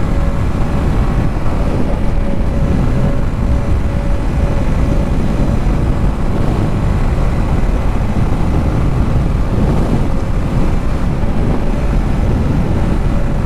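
Wind buffeting the microphone on a moving motorcycle, a Yamaha MT15 with a 155 cc single-cylinder engine, which runs underneath at an even, steady pitch.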